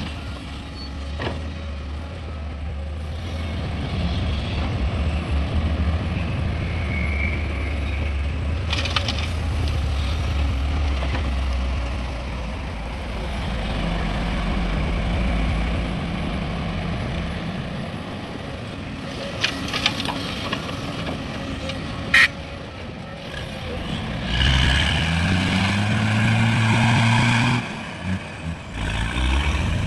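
Heavy diesel machinery running low and steady, with a few short sharp sounds in the second half. Near the end an engine revs up, its pitch rising for about three seconds before dropping off suddenly.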